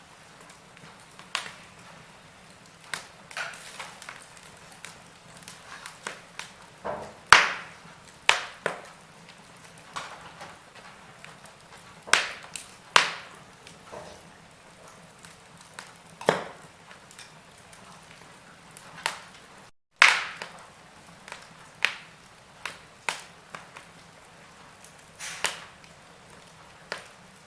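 Wood fire in a fireplace crackling: irregular sharp pops and snaps, a few much louder than the rest, over a soft steady hiss. The sound drops out completely for a moment a little past the middle.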